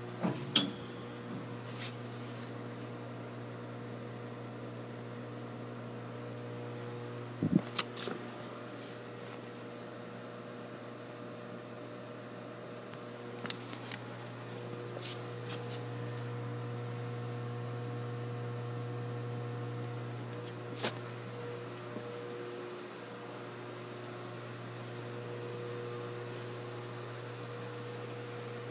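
Steady low electrical mains hum, with a few sharp clicks and knocks, the loudest about half a second in and around eight seconds in.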